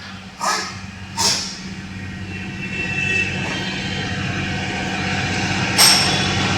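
Steady mechanical hum that grows louder after the first couple of seconds, with two short metallic knocks early on and one sharp knock near the end.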